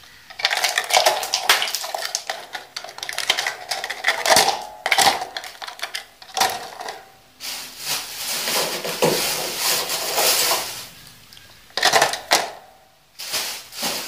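Ice pieces being dropped into a thin plastic bottle, clattering and rattling against the plastic in repeated bursts with short pauses between handfuls.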